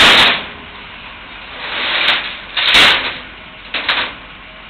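Four short bursts of scraping, hissing noise as a storage building is shifted during the move, the first and third the loudest.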